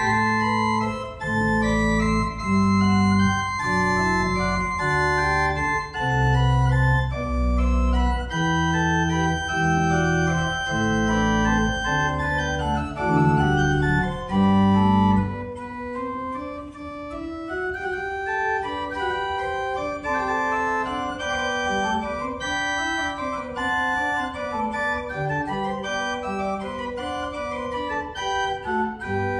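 Berghaus pipe organ playing a piece: full, loud chords over deep pedal bass notes that change about once a second. About halfway the pedal bass stops and a lighter, slightly quieter passage of held upper notes goes on, with the deep bass coming back in at the very end.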